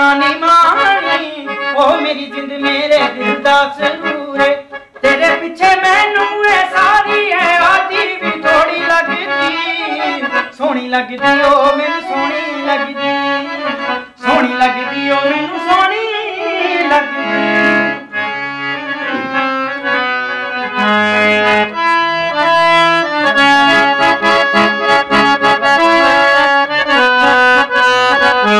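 Harmonium playing a Punjabi melody. For roughly the first half a man's voice sings long, wavering phrases over it; after that the harmonium plays on alone in steady held notes and chords.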